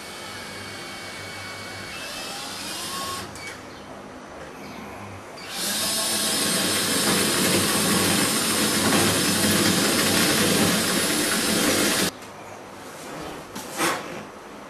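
Power drill running at speed for about six seconds, starting about five and a half seconds in and cutting off suddenly.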